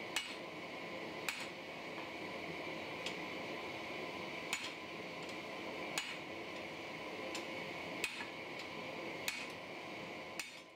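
Hammer blows on a hot san mai steel billet on an anvil, a sharp ringing strike about every second and a half, over the steady hiss of a gas forge burner.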